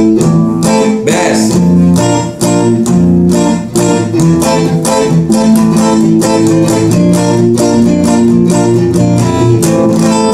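Clean Stratocaster-style electric guitar, finger-picked near the bridge, playing a quick, steady dangdut rhythm in A minor.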